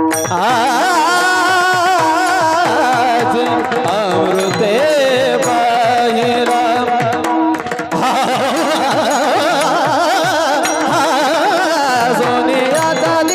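Marathi kirtan music: a high male voice singing a long, wavering, ornamented melody without clear words, over a steady held note and regular pakhawaj drum strokes.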